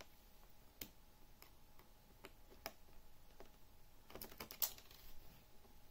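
Faint, scattered light clicks and taps as a tiny screw is positioned and driven with a small screwdriver into a laptop screen's mounting hole, with a quick cluster of clicks about four seconds in.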